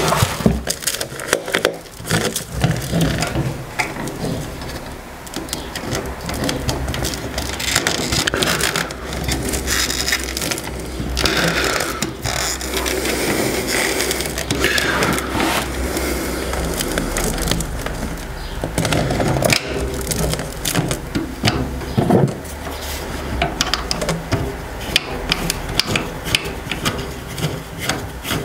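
Flexible ribbed plastic dust-extraction hose being worked by hand onto a plastic outlet port: irregular scraping and rubbing of the corrugated hose against the fitting, with scattered clicks and knocks.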